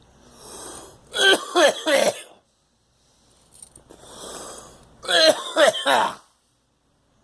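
A person coughing in two fits about four seconds apart, each a noisy in-breath followed by a quick run of three or four loud coughs. It is coughing from coffee that went down the wrong way.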